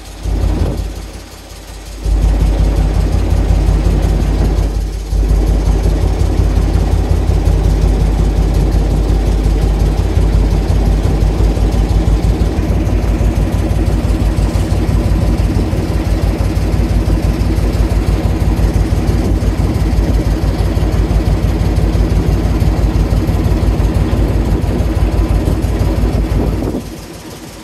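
The little engine of a small wooden passenger ferry boat running steadily under way, a low even drone heard from on deck. It comes up loud about two seconds in, dips briefly a few seconds later, and falls away shortly before the end.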